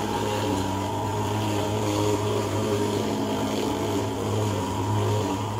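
Portable thermal fogging machine running with a steady, low-pitched drone as it blows insecticide fog.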